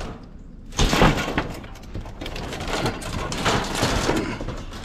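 Scrap steel clattering and scraping as it is handled and thrown onto a load, with a loud crash about a second in and irregular rattling after it.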